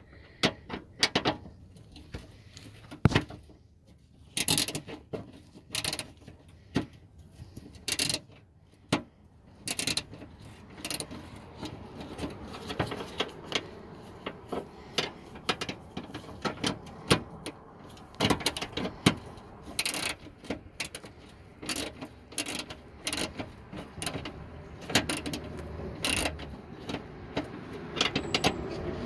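Hand socket ratchet clicking in short, irregular runs, with metal tools and fasteners clinking, as 8mm fender bolts are backed out.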